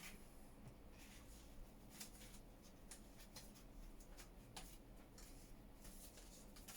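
Near silence: quiet room tone with faint, scattered rustles and small taps of paper being handled.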